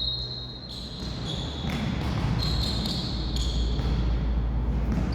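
Echoing indoor sports-hall sounds of a volleyball match: ball impacts and play on the court, with a high steady whistle-like tone near the start that fades about a second in and then returns more faintly a few times.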